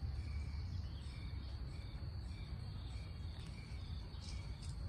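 Insects chirping in the background, short chirps about twice a second with a steady high whine, over a low steady rumble.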